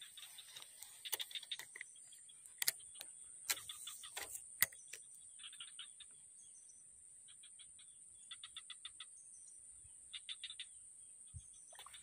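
Faint outdoor ambience: a steady high-pitched insect drone with several short, rapid chirping trills in the second half, and a few sharp clicks in the first half.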